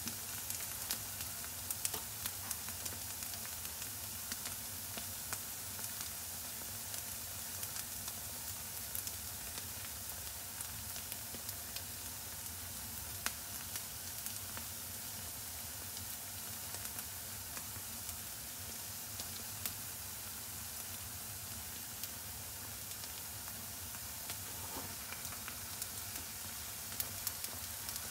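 Bánh chưng (sticky rice cake) shallow-frying in oil in a pan, the oil sizzling steadily with scattered small crackles as the cake crisps.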